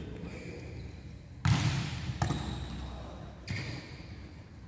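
A volleyball being struck and bouncing during practice: three sharp hits, the loudest about a second and a half in, another just after two seconds and a softer one about three and a half seconds in, each ringing on in the big hall's echo.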